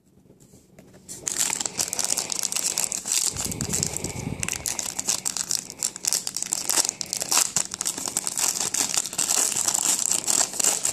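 A trading-card pack wrapper being crinkled and torn open by hand, starting about a second in, with steady dense crackling and a brief duller handling sound a few seconds in.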